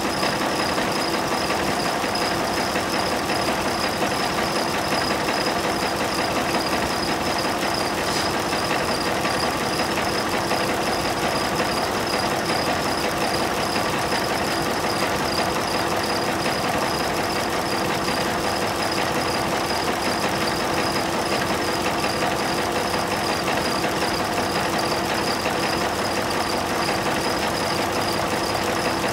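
1976 Cummins Big Cam II inline-six diesel engine idling steadily at an even, unchanging speed, with a steady high whine over the engine sound.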